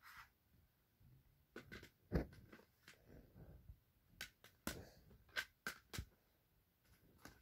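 Faint, scattered clicks and light knocks of small objects being handled and set down, about ten over several seconds, the sharpest about two seconds in.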